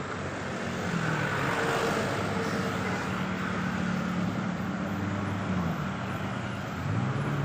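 A bus engine running with a low hum over road noise; near the end its pitch rises as the engine revs up.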